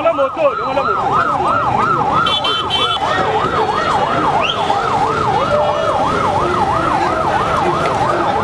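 A vehicle siren on a fast yelp, warbling up and down about three times a second, over the hubbub of a large crowd on foot.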